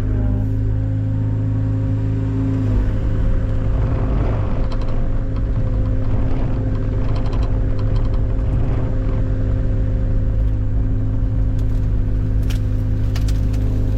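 Engine running steadily at a constant speed, its note shifting slightly about three seconds in, with scattered knocks and cracks in the middle and again near the end.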